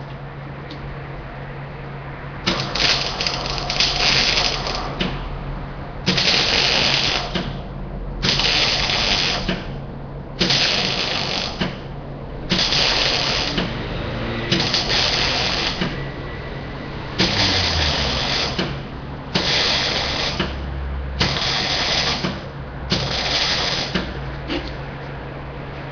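Electric arc welding done in short repeated bursts: about ten welds of a second or so each, every couple of seconds, each a loud crackling hiss that stops and starts again, over a steady low hum.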